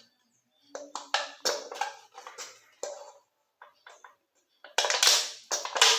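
An aluminium beer can being pierced to make a hole: a run of sharp metallic taps and clicks, then louder rasping bursts near the end as the thin metal is worked through.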